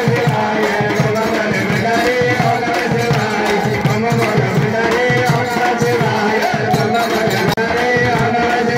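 Live devotional kirtan music: voices singing a chant to a fast, steady hand-drum beat.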